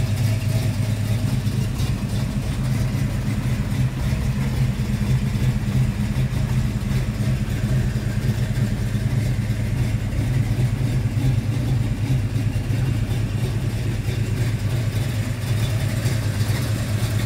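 1965 Ford Mustang's 331 cubic-inch stroker V8 idling steadily.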